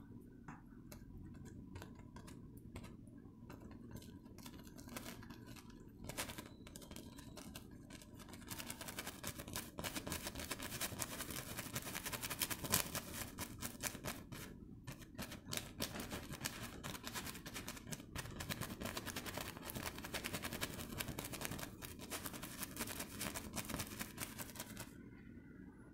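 Bristles of a fan brush dabbing and scratching acrylic paint onto canvas in rapid, repeated strokes. The strokes grow louder and denser about a third of the way in, with a brief pause around the middle.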